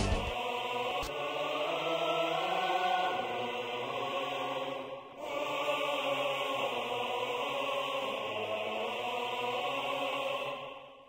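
Choral chant music: low voices singing long held notes, with a brief dip about five seconds in and a fade near the end.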